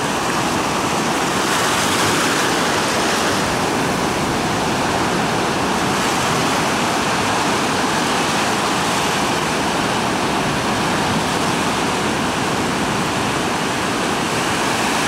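Ocean surf breaking and washing up the beach, a steady wash of wave noise.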